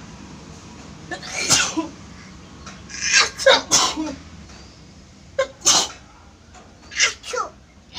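A woman sneezing again and again, four or five loud sneezes a second or two apart, set off by tickling the inside of her nose with a blade of grass.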